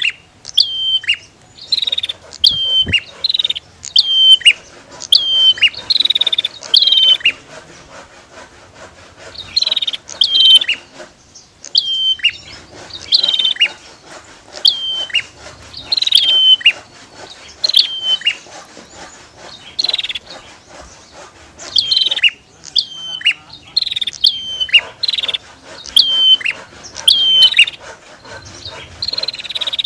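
Prenjak (prinia) calling: loud, sharp chirps repeated one or two a second, each sliding down in pitch, in runs broken by brief pauses.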